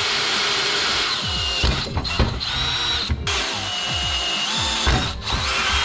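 Power drill boring holes in a metal rear trailing arm for bush retaining screws. The motor's pitch dips and recovers as the bit bites, with brief stops about three and five seconds in.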